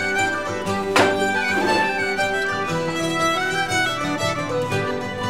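Background folk music led by a fiddle, with a sharp knock about a second in.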